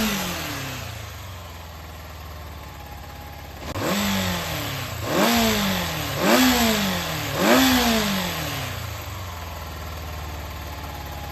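Yamaha XJR400 air-cooled inline-four, run as a bare engine assembly, idling and blipped: the revs settle to idle, rise about four seconds in, blip three times a little over a second apart, then drop back to a steady idle. It is sold as running well, with no abnormal noise.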